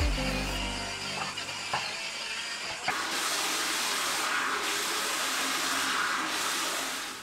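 Water running from a bathroom faucet into a ceramic basin and splashing over hands as the sink is rinsed, the rush getting louder about three seconds in. A few light knocks before the water runs full.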